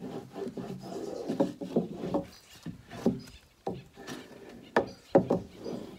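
A block of wood rubbed hard over window flashing on a log wall to smooth it down: irregular scraping strokes with a few sharp knocks of wood against wood.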